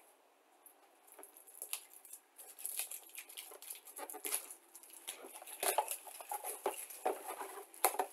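Cardboard model kit box being handled: a run of small irregular taps, scrapes and rustles that starts about a second in and grows busier in the second half.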